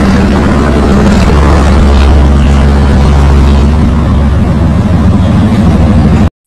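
Heavy truck's diesel engine running steadily as the FNM D11000 five-axle truck drives along, a deep low drone with rushing noise over it. The sound cuts off abruptly near the end.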